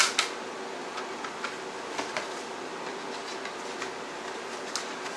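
CD cases and their packaging being handled: scattered light clicks and rustles, the sharpest right at the start, over a steady faint room hum.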